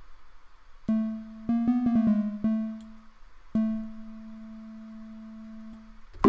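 Synthesizer notes from the LMMS 'Dull Bell' preset, played live on a MIDI keyboard: a single note about a second in, a quick run of several notes around two seconds, then one long note held from about three and a half seconds until just before the end.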